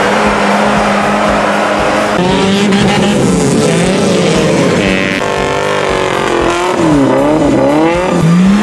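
An off-road vehicle's engine running hard. It holds a steady note for the first couple of seconds, then revs up and down again and again as the throttle is worked, rising sharply once more near the end.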